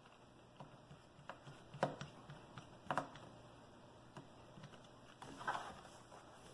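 Faint, scattered clicks and taps of small laptop parts being handled and fitted during screen reassembly, with two sharper clicks in the first half and a brief rustle near the end.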